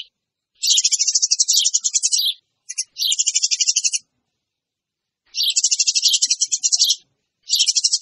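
Eurasian tree sparrows chattering noisily in bursts of rapid high chirps, about ten a second. Each burst lasts a second or two, with short silent gaps between them.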